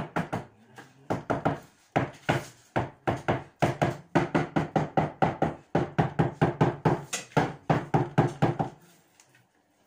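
Hand hammer striking over and over at the top of a wall, about three to four sharp knocks a second, ringing slightly in a small room. The knocks stop about nine seconds in.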